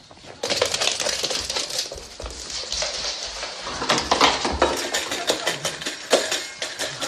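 A dog's claws clicking rapidly on a hard wooden floor as it runs, then the clatter of a metal food bowl as the dog eats from it.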